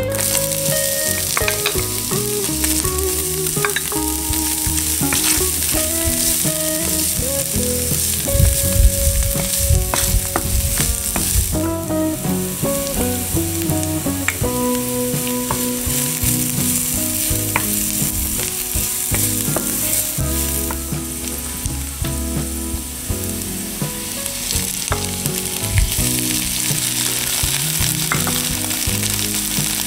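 Diced onion and garlic sizzling in hot oil in a skillet, with a wooden spoon stirring and clicking against the pan.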